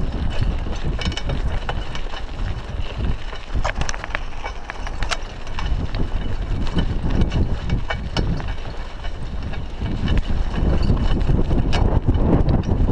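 A Raleigh Ascent bicycle rolling over a rough dirt road, with wind buffeting a chest-mounted action camera's microphone as a steady low rumble. Scattered clicks and rattles come from the bike over the uneven surface, most of them in the middle stretch.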